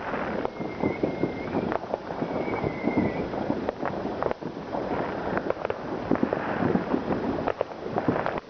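Fireworks and firecrackers going off in a dense run of quick bangs and crackles, with a high steady whistle heard twice in the first three seconds.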